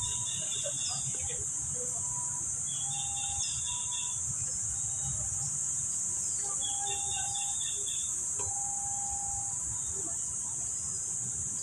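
Tropical park ambience: a steady high-pitched insect drone, with a bird's short chittering phrase heard three times and a few clear whistled notes, over a low rumble.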